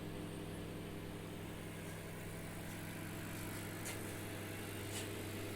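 BGH microwave oven running with a steady electrical hum from its high-voltage transformer and magnetron, now heating after its open high-voltage diode was replaced; the small extra noise in it is the turntable motor. A couple of faint ticks near the end.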